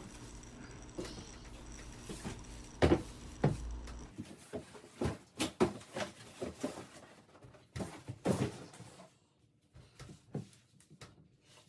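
Cardboard shipping box and foam wrapping being handled as a packed armchair is lifted out and the box dragged away: scattered rustles, scrapes and light knocks, busiest in the middle and thinning out near the end.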